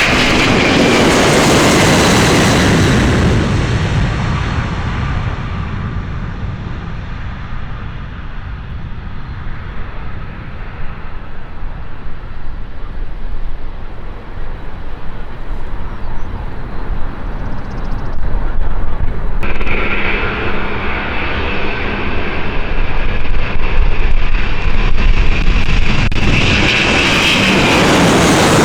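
Jet airliner engines at high power as a heavy jet passes close by, the noise fading away over the first several seconds. About two-thirds of the way through, the whine and rush of another jet's engines start abruptly and swell to full loudness near the end.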